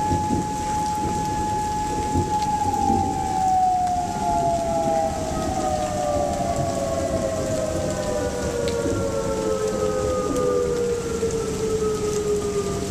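Outdoor warning siren holding one steady tone, then winding slowly down in pitch from about two seconds in, over the steady hiss of rain.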